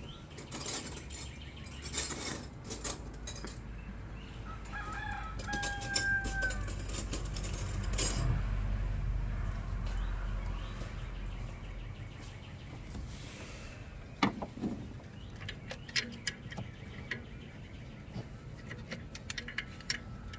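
A rooster crows once, about five seconds in, over scattered sharp metallic clicks and clinks from hand tools working on the engine bay. A low rumble swells and fades in the middle.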